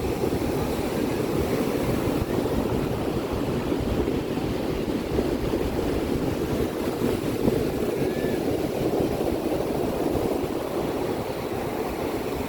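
Sea waves breaking and washing on the shore: a steady rushing noise with a low rumble.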